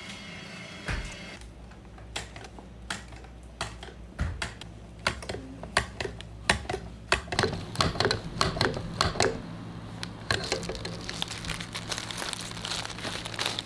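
Quick, irregular clicking and clacking of a whipped-cream filling dispenser as cream is pumped into a slab of castella sponge cake, getting busier as it goes, over a steady low machine hum. A hiss joins the clicks over the last few seconds.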